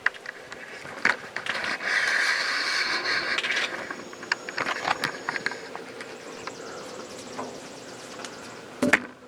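A video camera being picked up and repositioned by hand: scattered knocks and clicks, with a stretch of scraping and rubbing about two seconds in and a sharp knock near the end.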